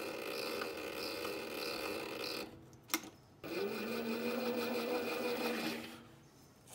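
Microlux 7x16 mini lathe motor running with a steady whine while it spins a small aluminium part that is being drilled and tapped for an M3 thread. About halfway through the sound drops away with a sharp click, then the lathe spins up again with a rising whine and winds down to a stop near the end.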